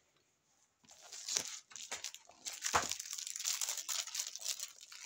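Crinkling and rustling of school supplies being handled close by, starting about a second in, with a single knock near the middle.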